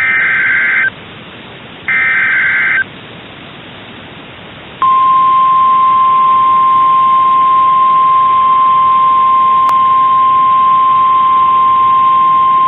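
Emergency alert broadcast over NOAA Weather Radio: the last two of three raspy digital SAME header bursts, each about a second long and a second apart. After a short pause, about five seconds in, the single steady warning alarm tone starts and holds, announcing a tornado warning.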